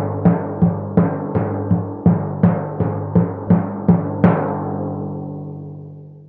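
A low, pitched drum struck about three times a second, with the last hit louder, then its ringing fades out.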